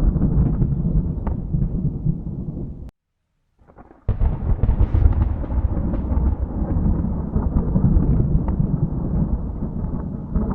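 Thunder rumbling, cut off suddenly to silence about three seconds in. About a second later a new peal starts sharply with a crackle and rolls on as a deep, continuous rumble.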